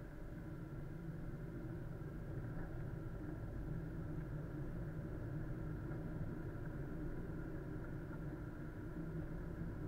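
Steady car engine and road noise of a car being driven, as picked up by a dashcam: a low, even drone with no separate events.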